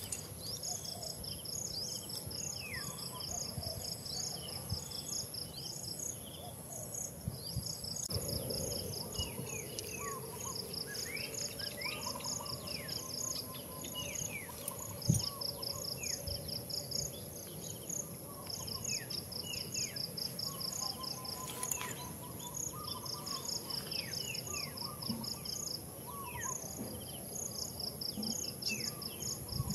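Insects in forest undergrowth: a constant high thin drone under a rapid pulsing trill that starts and stops every few seconds, with scattered short falling bird chirps. A single sharp thump sounds about halfway through.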